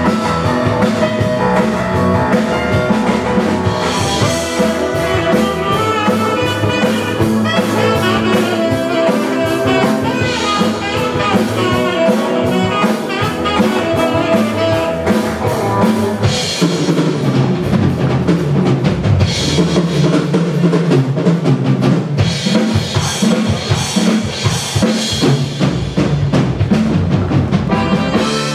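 Upbeat live band music with a steady drum-kit beat, played for a stage dance number.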